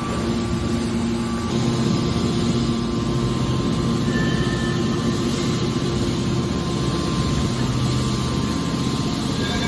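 Hydraulic scrap-metal baler running, a steady machine hum from its motor and pump over a noisy rumble.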